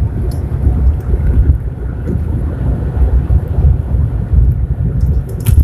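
Cabin noise of a Renault Symbol II's 1.4-litre petrol engine cruising at steady throttle around 2,500 rpm and just under 90 km/h: a low, uneven rumble of engine and road noise with wind buffeting on the microphone. A single knock near the end.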